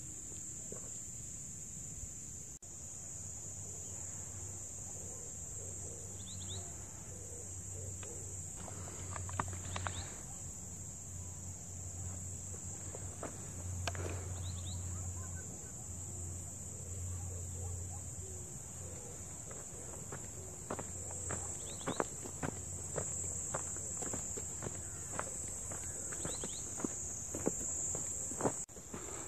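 Steady high-pitched chorus of insects in dry grass and scrub, with scattered footsteps and clicks, more of them in the second half. A low rumble runs for several seconds in the middle.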